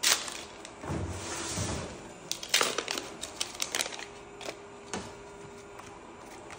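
Trading cards being handled and sorted by hand: cards sliding against each other and tapped down onto piles on a cloth playmat, a run of light clicks and flicks that is busiest two to three seconds in.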